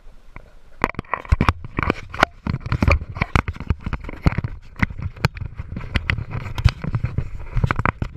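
Handling noise on the camera's microphone: irregular knocks, clicks and scrapes as the camera is moved around and repositioned by hand.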